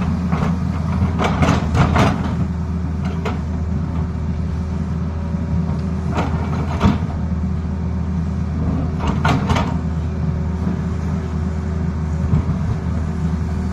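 Tata Hitachi 220 hydraulic excavator's diesel engine running steadily under digging load, with sharp clanks and scrapes of the steel bucket against rock and soil at intervals, bunched about a second in, around six seconds and around nine seconds in.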